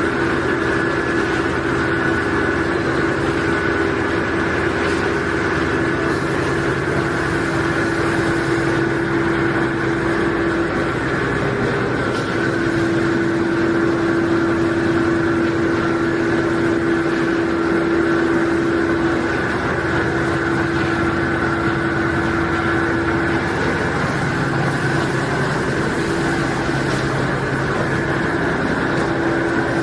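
A tissue paper production machine running steadily: an even mechanical hum with a constant tone and a fainter high whine held throughout.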